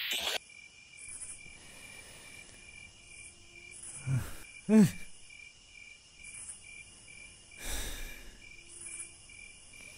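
High-pitched insect chirping that pulses a few times a second and runs steadily. It opens with a short burst of digital glitch noise. About four seconds in come two short falling sounds, the second the loudest thing here.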